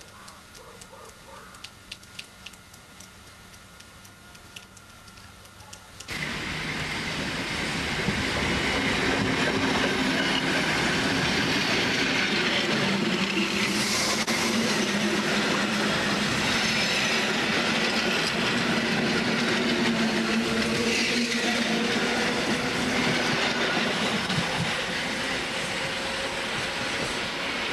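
Electric commuter train running along the track, coming into the platform. Its sound cuts in suddenly about six seconds in and stays loud and steady; before that there are only faint scattered clicks.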